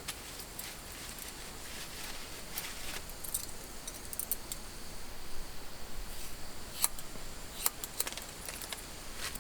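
Scattered light clinks and clicks of small hard objects being handled, in loose clusters, with the sharpest ones about seven and eight seconds in.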